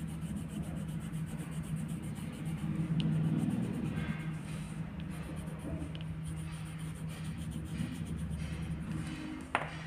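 A pencil shading on paper: rapid back-and-forth scratching of the lead over the sheet, over a steady low hum, with one sharp click near the end.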